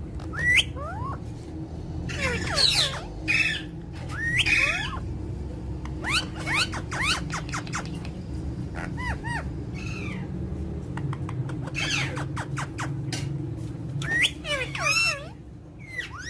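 A bird calling and singing in repeated bursts of quick whistled chirps that swoop up and down in pitch, over a steady low hum.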